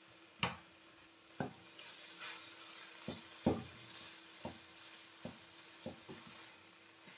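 Wooden spatula stirring grated carrot halwa in a stainless steel pan: about eight knocks against the pan, with soft scraping between them.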